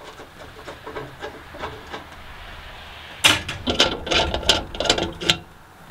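A leg of a US Stove Caribou camp stove being unscrewed from the firebox by hand: faint ticks at first, then about halfway through some two seconds of quick clicking and scraping from the threads.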